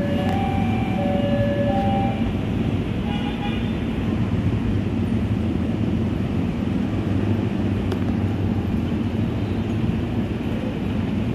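Steady rumble of road traffic, mostly motorcycle engines, with short horn-like toots in the first three or four seconds.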